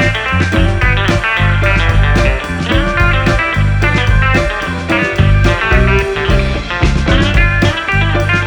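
Background music with a prominent guitar and a steady beat.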